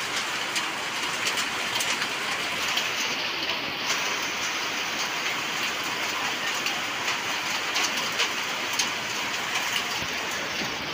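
Heavy rain mixed with hail pelting a tin roof: a dense, steady hiss peppered with many sharp ticks of hailstones striking.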